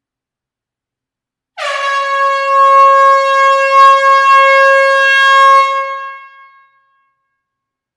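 Air horn sounding one long, loud blast on a steady note. It starts abruptly about a second and a half in, lasts about five seconds, then tails off.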